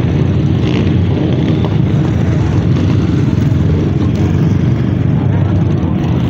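Many motorcycle engines running together, with vehicles driving past.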